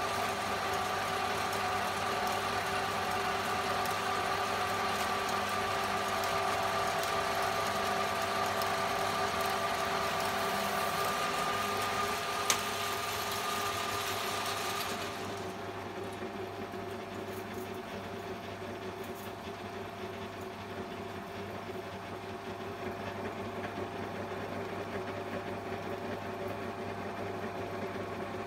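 Old Hahn & Kolb lathe running steadily with a whine and hiss. About halfway through, the high whine and hiss drop away, leaving a lower steady hum. There is a single sharp tick shortly before the change.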